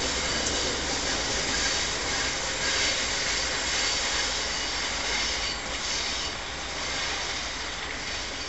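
Distant train moving away along the line: a low rumble under a high hiss of wheels on rail, slowly fading.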